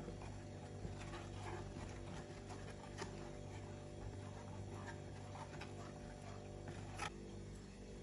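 Silicone whisk stirring thickening milk-and-cornstarch custard in a saucepan: faint, irregular scraping and soft taps against the pot, with a few sharper clicks, over a low steady hum.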